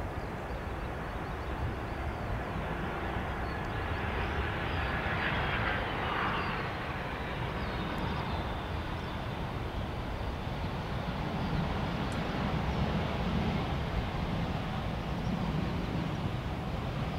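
Airplane engines running, a steady rumble that swells for a few seconds about five seconds in, with a faint high whine.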